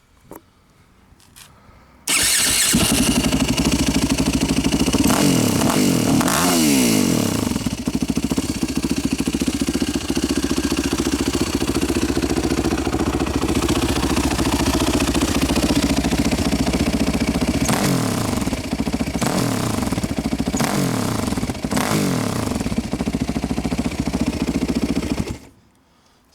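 2005 Yamaha WR450F single-cylinder four-stroke engine breathing through a GPR exhaust with the dB-killer removed: it starts about two seconds in, idles with several sharp throttle blips that rise and fall in pitch, then shuts off abruptly near the end.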